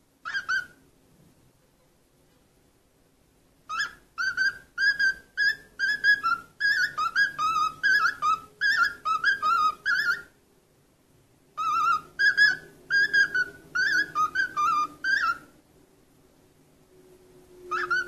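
Cockatiel whistling a tune: a short whistle near the start, then two long runs of quick rising-and-falling whistled notes separated by a pause of about a second and a half, and one more note at the end.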